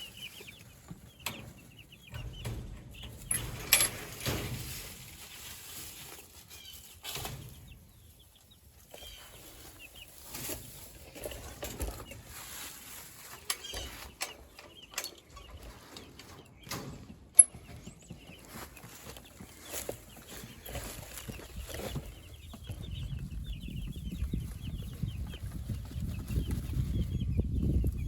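A flock of meat chickens cheeping and clucking, with scattered sharp knocks and clicks among them. A low rumble builds over the last few seconds.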